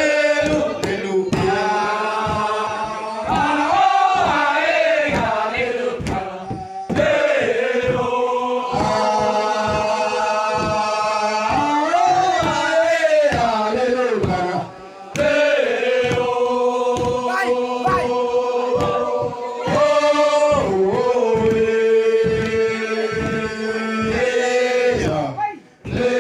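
A group of men singing a traditional Manggarai ceremonial chant in long held notes, phrase after phrase. The chant runs over a steady beat of about two to three strokes a second.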